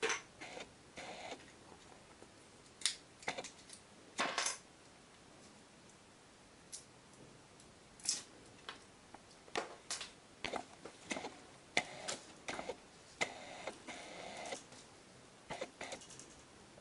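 Small plastic line-tensioner brackets with double-sided tape pads being handled and fitted to a PVC window frame: scattered light clicks and taps with short scratchy rustles and scrapes at irregular times, a few lasting about a second.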